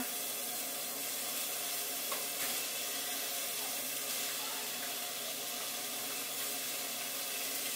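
Diced pork sizzling steadily in a hot pot, with a couple of faint clicks about two seconds in.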